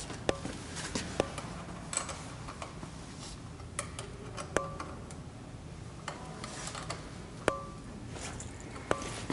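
Scattered sharp metallic clinks and taps, a dozen or so at irregular intervals, several with a brief ring, over a steady low hum.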